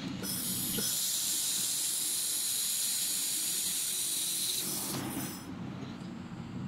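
Handheld laser welding gun welding 2 mm steel sheet, a steady high hiss that stops about five seconds in.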